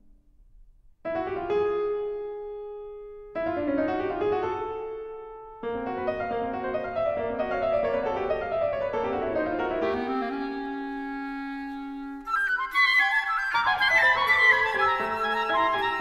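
Flute, clarinet and piano trio playing contemporary classical chamber music. After a moment of silence the piano plays loud, fast swirling runs in three sharp entries that each fade, then carries on without a break. In the last few seconds the clarinet and then the flute come in loud with quick high figures.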